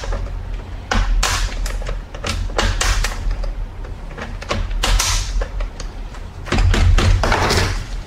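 A utility knife blade scraping and shaving the plastic housing of a Shark Rocket vacuum's floor head, in a string of irregular short scrapes, to round out a recessed screw hole. Bumps of the housing being handled run underneath, and a longer, louder scrape comes near the end.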